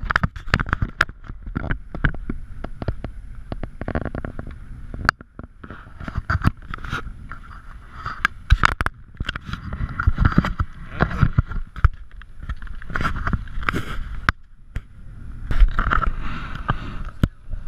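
Choppy lake water slapping and splashing against a kayak's hull in irregular strokes, with wind rumbling on the microphone.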